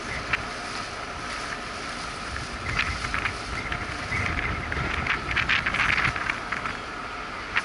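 Wind on the microphone over a steady machinery hum and low rumble on a cruise ship's open deck. From about three seconds in there is a stretch of scattered crackling, clattering strokes.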